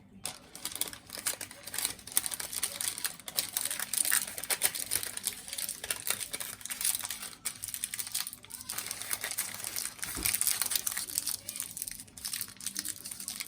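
Crinkling and rustling of something being handled, a dense run of small crackles and clicks that comes and goes in strength.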